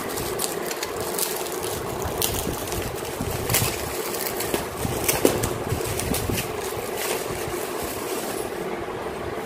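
A steady hum over an even background hiss, with a few faint clicks scattered through the first half.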